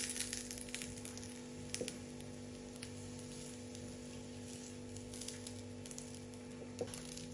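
Egg, milk and flour batter frying in olive oil in a pan: a faint, steady sizzle with scattered small crackles, over a steady low hum.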